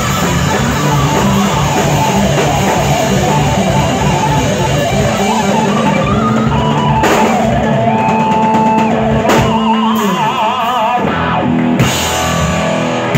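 Live rock band playing: an electric guitar solo with bent notes, a long held note and a wide, wavering vibrato over bass guitar and a drum kit.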